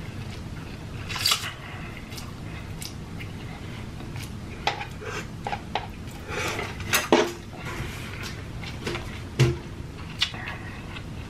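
Close-miked eating of saucy instant noodles: a noodle slurp about a second in, then scattered wet chewing and mouth clicks with light knocks of chopsticks and a paper cup.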